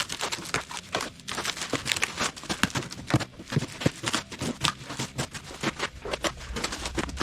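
Cardboard shipping box being torn open and handled: a rapid, irregular run of crackling, tearing and scraping.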